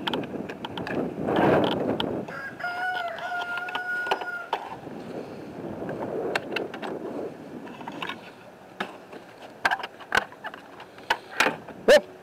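Wind rushing on the microphone, then a rooster crowing once, a drawn-out call of about two seconds. Then the metal hasp and wooden nest-box lid of a chicken coop clicking and knocking as they are handled, with the loudest knock near the end.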